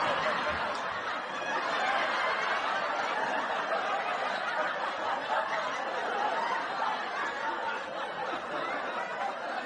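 Many voices laughing and chattering at once, holding at an even level, with no single voice standing out.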